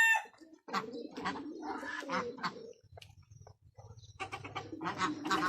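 Domestic pigeons cooing in two spells, the second starting about four seconds in.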